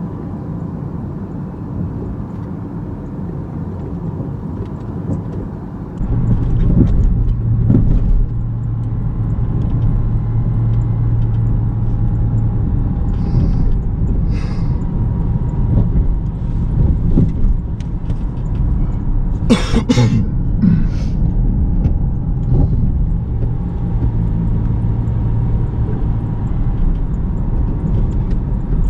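Car engine and road noise heard from inside a moving car, a steady low rumble that gets louder about six seconds in. A few brief sharp noises come around twenty seconds in.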